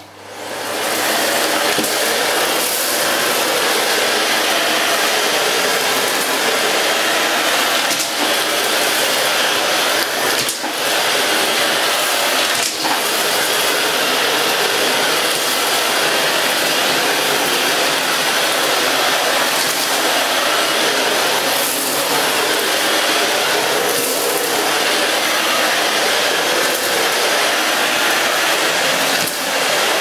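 Miele S5 Revolution 5000 bagged cylinder vacuum cleaner switched on, running up to speed over about a second, then running steadily as its standard floor nozzle is pushed over a tiled floor. A few short clicks and knocks come through here and there.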